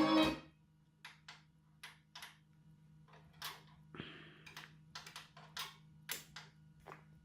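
A thump right at the start, then a turntable playing a record's lead-in groove through a phono preamplifier: irregular sharp clicks and pops of vinyl surface noise over a steady low hum, before the music begins.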